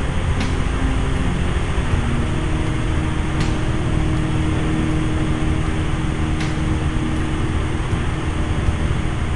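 Helicopter cabin noise in flight: a steady, loud rumble of the rotor and engine, with a faint click about every three seconds.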